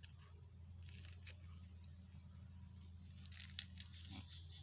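Faint tearing and crackling of a young banana shoot's fibrous outer layers being peeled off by hand, in scattered short snaps.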